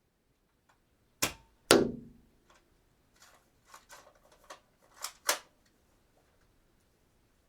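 Dart gun being shot and cocked: two sharp snaps about half a second apart, the second the loudest with a short low ring, then a run of lighter mechanical clicks and two sharper clacks.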